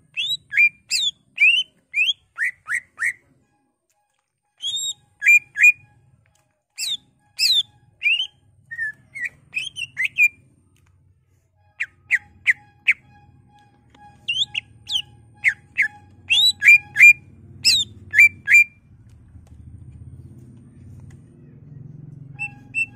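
Caged male green leafbird (cucak ijo) singing in rapid bursts of short, sharp whistled and chirping notes, with gaps of a second or more between runs and a long pause near the end.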